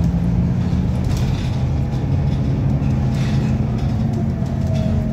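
City bus engine and gearbox droning under way, heard from inside the passenger cabin, with a faint rising whine near the end. The uploader thinks the bus doesn't sound right and suspects an engine or gearbox problem.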